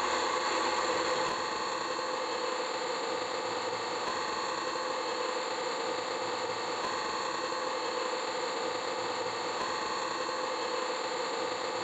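Drill press motor running steadily while its bit bores into laminated particleboard, a continuous whirr with cutting noise, a little louder in the first second or so.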